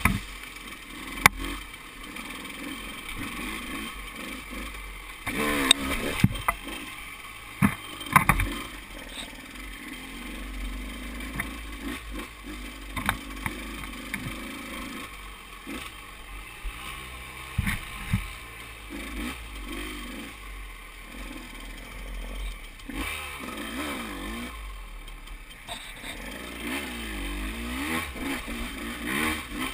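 KTM 200 XC-W's two-stroke single-cylinder engine revving up and down at low trail speed, with sharp clattering knocks from the bike over rough ground, loudest in the first ten seconds.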